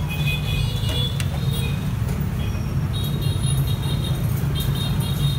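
Steady low rumble of background traffic noise, with short, faint high-pitched chirps repeating from about three seconds in.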